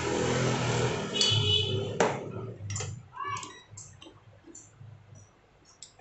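A hissing noise with a low hum dies away over the first two seconds. A sharp click follows, then a scattered series of light clicks and taps as a small power-supply circuit board is picked up and moved about on a workbench.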